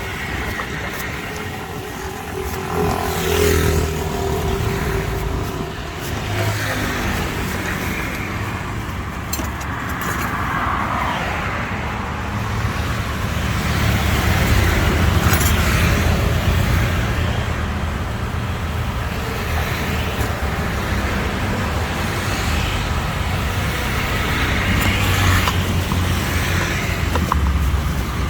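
Road traffic close by: a continuous engine and tyre rumble from passing vehicles that swells and eases, loudest about halfway through and again near the end.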